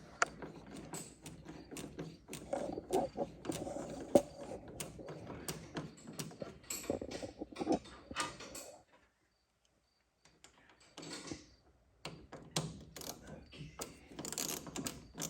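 Hand tools and car parts being worked: a run of quick mechanical clicks and clatter, like a ratchet and small metal pieces being handled. The sound drops out completely for about three seconds in the middle, then the clicking resumes.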